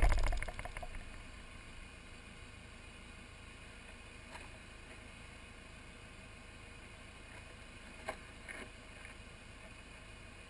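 A brief loud rustling knock fades out within the first second, then a faint steady low rumble runs on. Near the end come a few light crunches on gravel.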